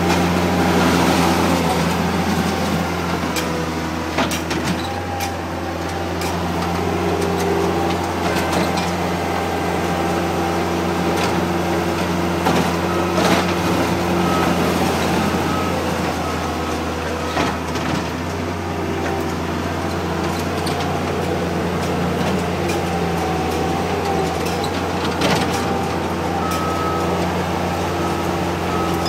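Case 85XT skid steer loader's diesel engine running steadily at a constant speed.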